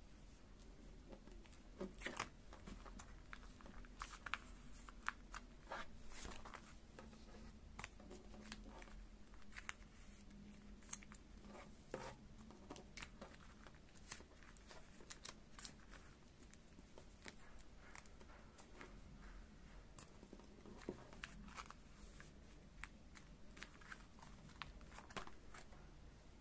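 Quiet handling sounds of photocards and clear plastic binder pocket pages: irregular light clicks, taps and crinkles as cards are slid into the sleeves and the pages are moved.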